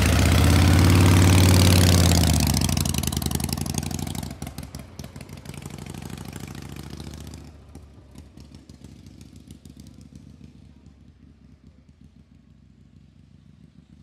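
Metal gear machinery running: a deep hum that rises and falls in pitch over the first few seconds, then winds down into a fading rattling clatter.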